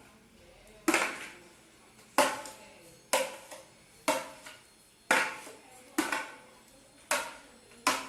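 A utensil knocking against a mixing bowl about once a second, eight knocks in all, each ringing briefly, as the slime mixture is stirred.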